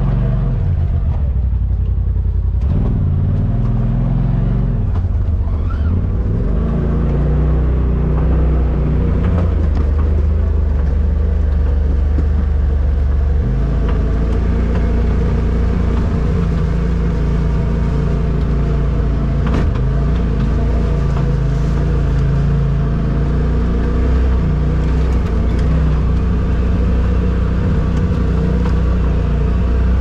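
Polaris RZR Pro XP side-by-side's engine running as it drives, its revs rising and falling several times with a steady low rumble.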